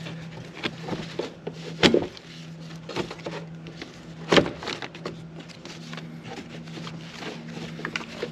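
Hands working a felt battery insulation wrap into place around a car battery: scrapes and a few sharp knocks of felt and plastic against the battery case, the loudest about 2 and 4.5 seconds in, over a steady low hum.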